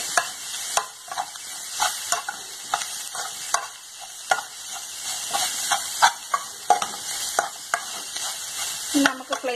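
Spoon stirring shredded chicken, cabbage and onion in an aluminium pan, the mixture sizzling as it fries, with sharp scrapes and taps of the spoon against the pan every half second or so.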